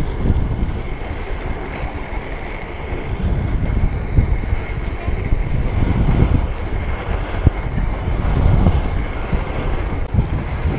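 Wind buffeting the microphone over a steady low rumble of roller-skate wheels rolling on pavement, with a faint steady high whine.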